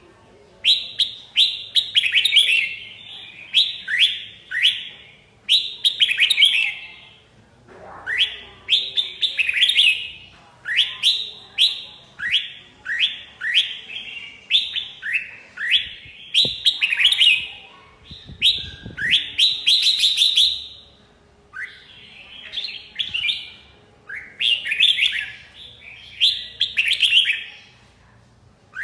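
Red-whiskered bulbul singing: short, bright phrases of quick falling notes, repeated every second or two.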